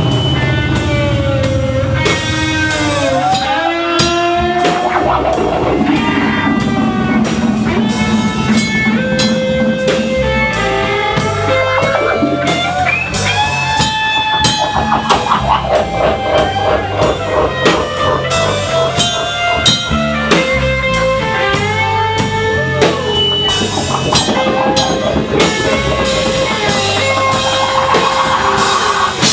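Live rock band playing at full volume: guitar lines with bent notes over a drum kit keeping a steady beat and a moving bass line.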